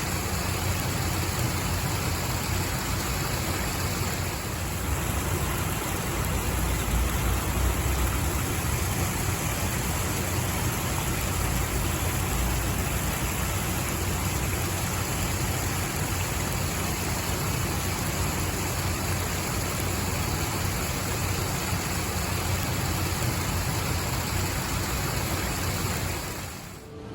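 Steady rushing water, an even hiss with a low rumble, fading out near the end.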